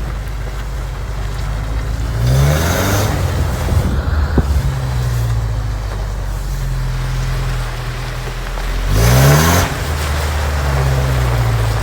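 Toyota pickup's freshly rebuilt 22RE four-cylinder engine running steadily off-road, revving up twice: about two seconds in and again about nine seconds in.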